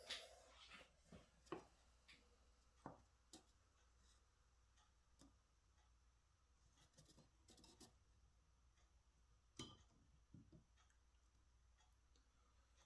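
Near silence broken by scattered faint clicks and light taps of a small digital height gauge being handled and set down on the table saw top.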